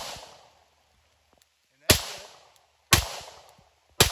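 Beretta 92FS 9mm pistol fired in single action. A shot is dying away at the start, then three more come about a second apart from about two seconds in, each ringing out for about half a second.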